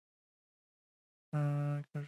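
Dead silence, then a man's voice comes in near the end with a held, level vowel sound, the start of speech.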